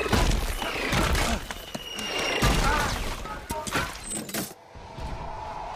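Film action sound effects: a rapid series of crashes, clatters and impacts under music. About four and a half seconds in, it drops away to a steady held tone.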